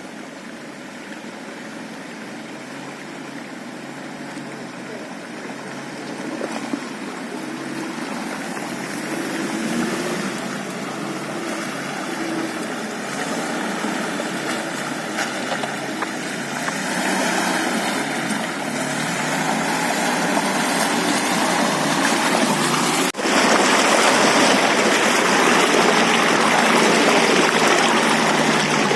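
UAZ Bukhanka van's engine running under load as it drives off-road, mixed with a rushing noise that slowly builds. After a brief break about two-thirds of the way in, the rushing is louder.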